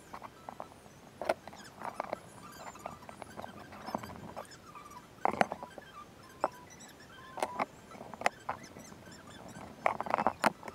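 Sporadic clicks and light knocks of wooden box parts and tools handled on a workbench during a glue-up, with a quick cluster of clicks near the end as a one-handed bar clamp is set and tightened.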